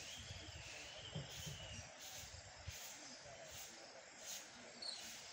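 Faint outdoor bush ambience: insects chirping in a regular pulse, about three every two seconds, with a bird's wavering whistled song over the first two seconds and a short bird chirp near the end. A couple of low bumps stand out about a second in and near the middle.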